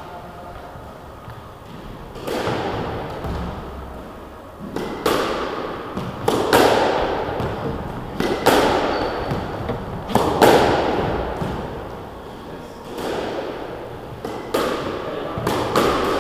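Squash rally: the ball cracking off rackets and the court's front and side walls, a dozen or so irregular hits starting about two seconds in, each ringing out in the echoing court.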